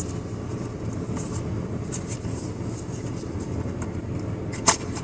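Steady low rumble of a car idling with its air conditioning running, heard inside the cabin. A single sharp click near the end.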